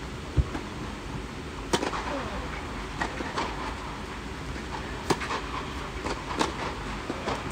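Tennis rally on clay: a tennis ball struck by rackets and bouncing, heard as sharp pops at irregular intervals of one to two seconds, with a dull thump shortly after the start. Under it runs a steady hum.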